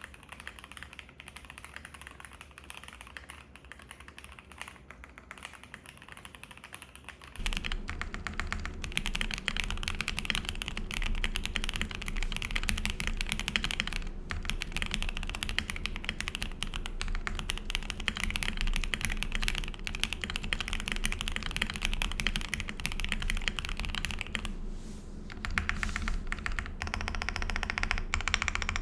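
Fast typing on a Kezewa Enter67 mechanical keyboard with lubed Banana Split linear switches in an aluminium plate and PBT keycaps: a dense run of keystrokes. It gets markedly louder and deeper about seven seconds in, with a couple of short pauses later on.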